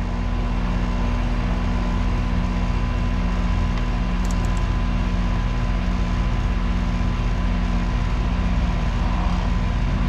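A 13-year-old central air-conditioner outdoor condensing unit running, its compressor and condenser fan motor giving a steady hum and rush.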